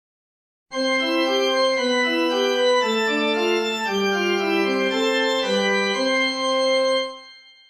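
JR Shikoku train chime melody played on a music app's virtual instrument: a short tune of held, steady notes in two parts that starts about a second in and ends near the end with a brief fade.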